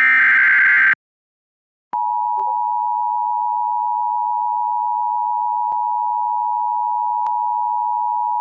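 Emergency Alert System broadcast: a burst of digital SAME header data tones ends about a second in. After a short silence, the steady two-tone EAS attention signal starts about two seconds in and holds.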